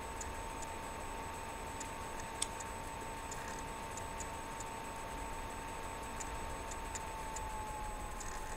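Faint, irregularly spaced light clicks, with one sharper click about two and a half seconds in, over a steady faint tone.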